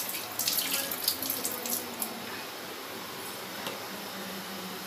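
Kitchen tap running, its water splashing over a hand and into a sink, loudest and most splashy for about the first two seconds, then a quieter steady hiss.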